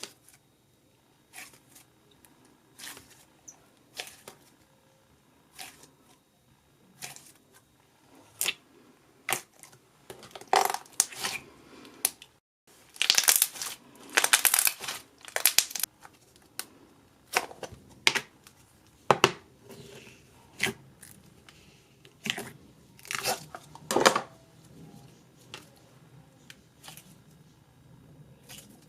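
Slime being worked by hand, giving irregular crackling pops and clicks, with a dense run of crackling about halfway through.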